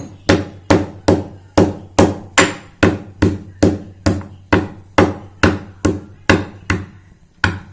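Dry ginger being pounded with a steady run of sharp strikes, about two a second, each with a short ring, as the dried root is crushed.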